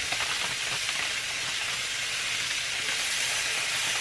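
Turkey bacon strips sizzling on a hot Rival electric griddle: a steady hiss with light crackles as more strips go down.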